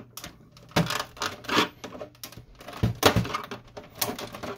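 Plastic side panel of a Samsung CLP-365W laser printer being pried off with a flathead screwdriver: a run of clicks, snaps and knocks as its latches let go, loudest about three seconds in.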